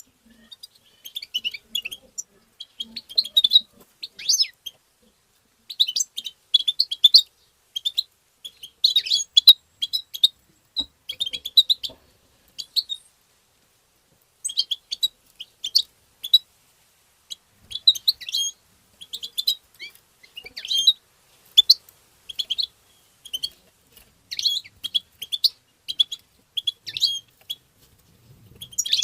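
European goldfinch twittering: quick runs of short, high chirps broken by pauses, with a longer pause about halfway through.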